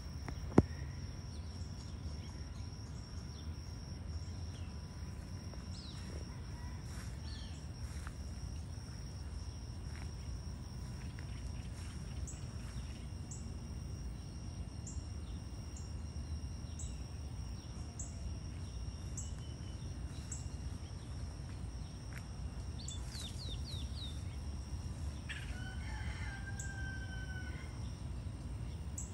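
Outdoor ambience of a steady low hum and a thin, steady high insect drone, with a sharp click about half a second in. Scattered bird calls come through, and a rooster crows near the end.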